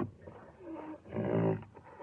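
Rhinoceros calling: a brief low call, then a louder, rougher call about halfway through.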